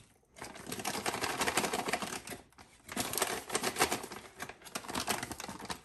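Plastic bag of coarse pumpernickel rye meal crinkling and the meal rustling as a measuring cup is scooped into it and shaken level, in two spells of dense crackling with a short pause between.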